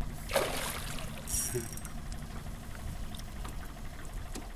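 A boat's outboard motor idles with a steady low hum. Brief rushes of water-like noise break in near the start.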